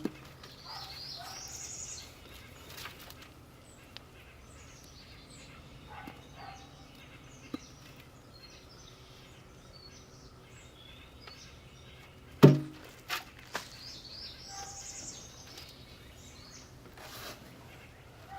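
Birds chirping and singing, many short high calls scattered throughout. One sharp knock about twelve seconds in.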